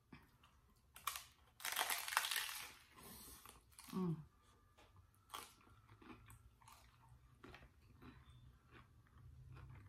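Hard-shell corn taco crunching loudly as it is bitten into, followed by quieter chewing with small crackles. About four seconds in there is a short hum that drops in pitch.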